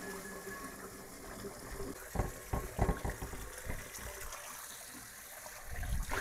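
Hot water running from a kitchen faucet onto a cast iron skillet in a stainless steel sink while the skillet is scrubbed, with a few sharp knocks about two seconds in and a duller thump near the end.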